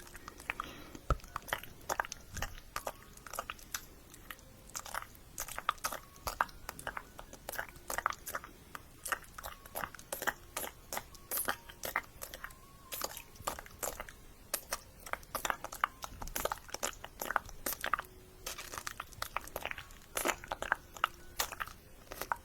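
Close-miked ASMR mouth sounds: quick, irregular clicks and smacks of tongue and lips.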